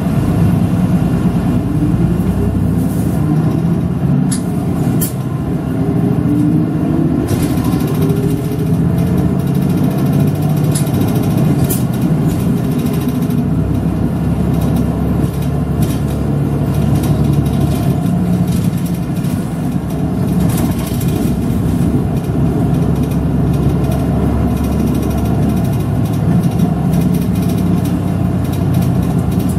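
City route bus's engine and drivetrain running steadily under way, heard from inside the cabin, with the engine note climbing in the first few seconds as the bus pulls away. A few short sharp clicks or rattles cut in here and there.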